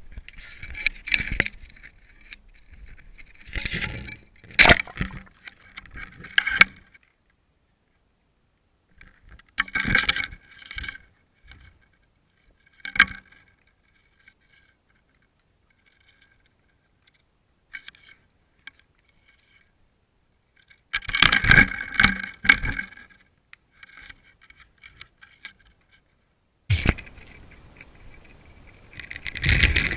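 Irregular clusters of clinking and scraping rattles that come and go, with near-silent gaps between them.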